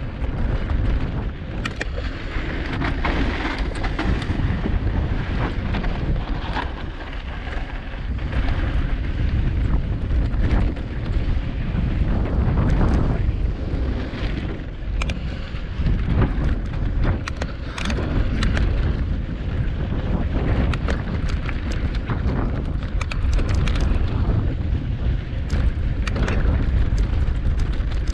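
Wind buffeting the mountain bike's onboard camera microphone as it rides rocky singletrack, with the tyres running over loose dirt and stones and frequent sharp clicks and rattles from the bike over the bumps.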